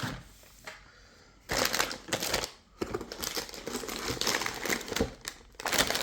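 Plastic packaging crinkling and rustling in bursts as items are handled and taken out of a box, with a few sharper crackles.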